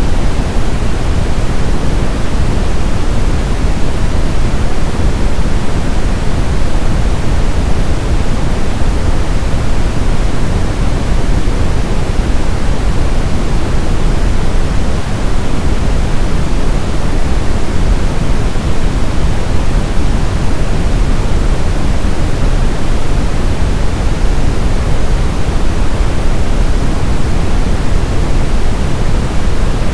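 Brown noise: a steady, unchanging deep hiss, strongest in the low rumble and thinning toward the top.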